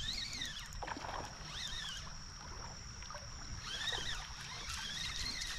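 Creek-side ambience: a steady high insect drone, with short rising-and-falling whistled notes four times over a low rumble of water and wind.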